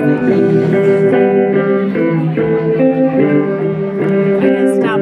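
Sunburst archtop guitar played live, a steady run of strummed and picked chords changing about every half second.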